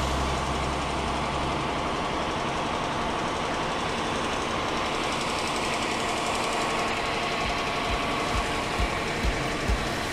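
The fire truck's Cummins L9 diesel engine idling steadily, an even mechanical clatter.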